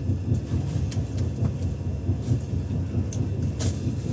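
Steady low rumble of an LHB air-conditioned coach running along the track, heard from inside the coach, with a couple of light clicks about three seconds in.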